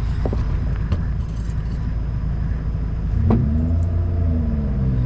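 4x4 engine running under a low rumble; about three seconds in it revs up, holds the revs, then eases off slightly, with a few sharp knocks along the way.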